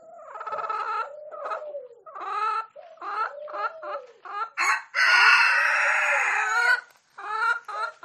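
Chickens clucking in a run of short calls, with one long, loud call of nearly two seconds about five seconds in: a rooster crowing.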